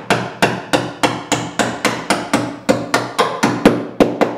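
Steel hammer tapping 3/16-inch bolts down through a wooden canoe gunwale: a steady run of light, quick blows, about four a second, each with a short metallic ring.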